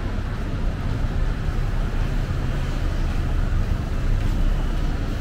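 City road traffic: a steady, low rumble of passing vehicles' engines and tyres, with no single vehicle standing out.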